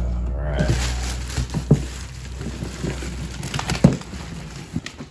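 Cardboard packaging and plastic wrap being handled: rustling and crinkling of plastic sheeting around a boxed winch, with a few sharp knocks of cardboard.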